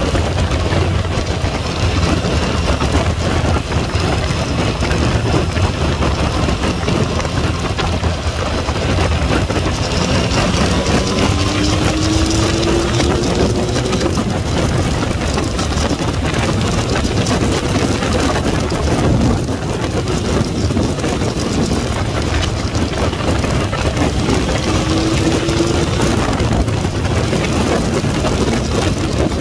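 A Yamaha MT-09's three-cylinder engine running at road speed under heavy wind noise on the camera microphone. Its pitch rises briefly twice as it pulls harder.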